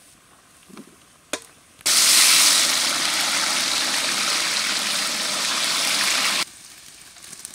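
Potato cubes deep-frying in a kadai of hot oil, giving a loud, even sizzle. It starts abruptly about two seconds in and stops abruptly about a second before the end.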